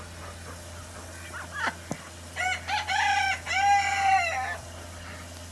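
Rooster crowing once about halfway in: a few short syllables running into a long, drawn-out final note.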